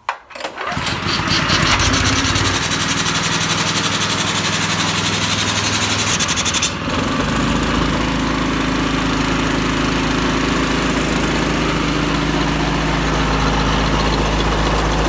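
Honda GX200 single-cylinder four-stroke petrol engine running a motocompressor's air pump, a loud steady running note. About seven seconds in the sound shifts and goes a little quieter, then runs on steadily.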